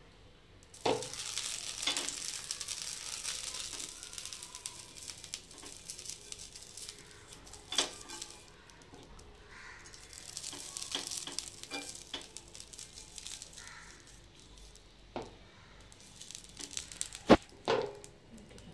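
Hot cast iron dosa tawa sizzling as a hand spreads liquid over its surface. The hissing comes in two spells, about a second in and again about ten seconds in, with a few sharp knocks in between; the loudest knock is near the end.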